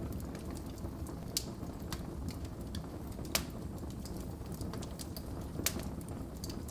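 Wood fire in a fireplace crackling: a steady low rumble of flames with many small ticks and three louder pops spread through.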